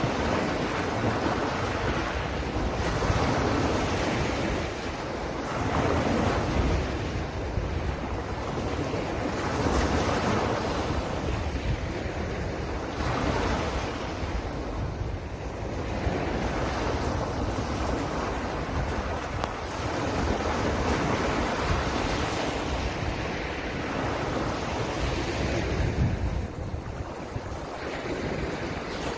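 Ocean waves breaking and washing in, surging and easing every few seconds, with wind buffeting the microphone.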